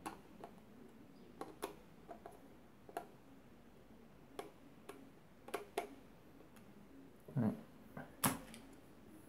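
Faint, irregular clicks and ticks of a screwdriver turning the small screws of a plastic battery cover on a solar animal repeller, with two louder knocks near the end as the unit is handled.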